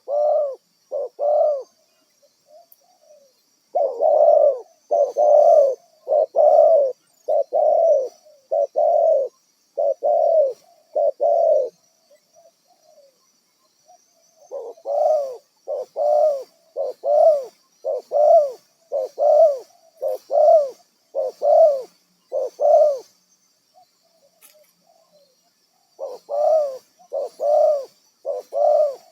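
Spotted dove cooing in runs of low, evenly spaced coo notes, about one a second, broken by pauses of a few seconds between runs.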